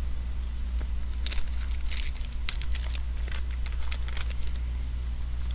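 Trading cards being handled and shuffled through: a run of quick crinkles and flicks between about one and four and a half seconds in, over a steady low hum.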